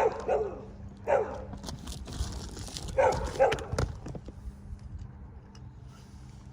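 A dog barking about four times: once at the start, once about a second in, and a quick pair around three seconds in. A faint steady hum runs underneath.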